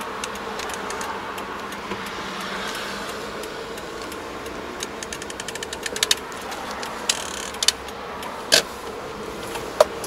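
Car driving in town, heard from inside the cabin: steady engine and road noise. About halfway through, a run of clicks quickens into a short rattle, followed by a few single sharp clicks.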